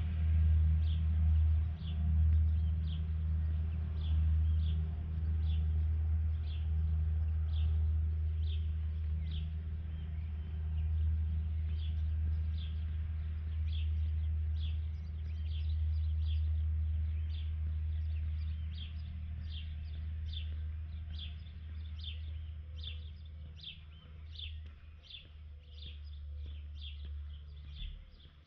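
A bird repeating short, high, falling chirps, about one or two a second and closer together in the second half, over a steady low rumble that fades near the end.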